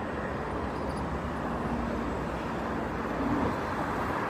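Steady vehicle and traffic noise heard from inside a car: an even hum with no distinct events.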